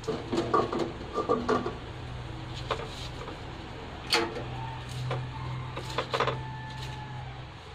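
A metal lid clinks and rattles as it is set on a steel wok, with short metallic ringing, in the first couple of seconds. A sharp click about four seconds in, as the gas stove knob is turned off, is followed by a few more light knocks, over a steady low hum.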